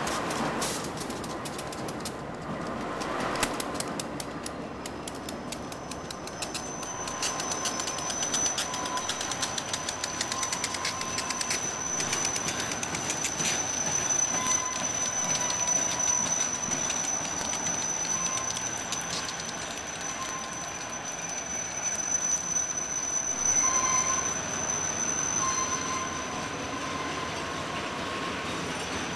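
Autorack freight train rolling past, its wheels clicking rapidly over the rail joints for the first few seconds. From about six seconds in, a steady high-pitched wheel squeal joins in, with fainter squealing tones coming and going beneath it.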